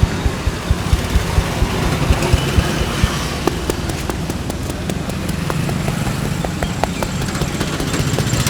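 Rhythmic hand percussion of an Indian head massage: dull thuds at about three to four a second, giving way after about three seconds to lighter, quicker taps and clicks, over a steady low hum.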